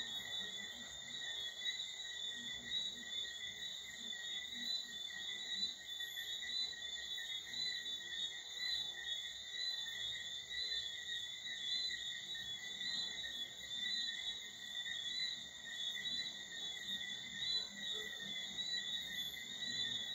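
Night chorus of calling animals: a continuous high-pitched trilling held at several steady pitches, without a break.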